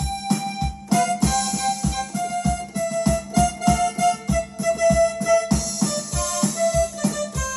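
Accordion sound playing a song's melody, with held notes stepping from one to the next over a steady, even bass beat.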